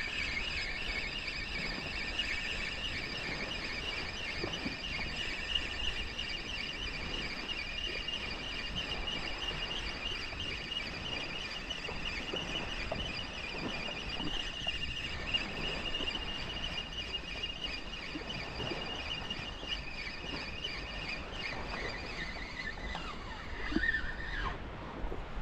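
Fishing reel and line whining while a long cast is reeled in: a high, wavering squeal that holds steady, then glides down in pitch and stops near the end.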